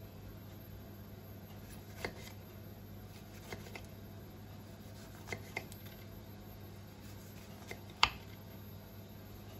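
Kitchen knife slicing through clementines and tapping on a cutting board: a handful of short, sharp knocks spread out, the loudest near the end, over a steady low hum.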